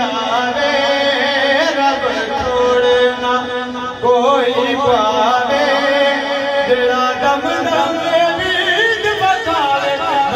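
A man singing a Punjabi devotional song (manqabat) into a microphone, in long held notes with wavering ornamental turns.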